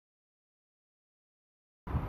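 Digital silence with no sound at all, until a voice begins to speak right at the very end.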